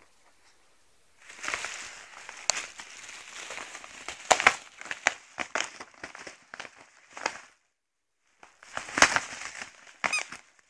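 Paper envelope crinkling and tearing as a schnauzer tugs at it with its teeth, with sharp crackles, in two spells broken by a short pause about eight seconds in.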